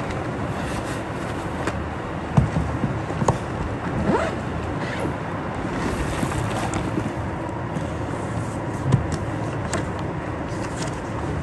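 Steady rushing air-conditioning noise, with a few soft knocks and rustles as a backpack is unpacked and sheets of paper are handled.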